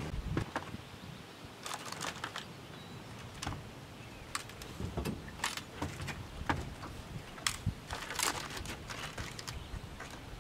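Scattered light clicks and knocks of fishing tackle being handled in a small metal boat.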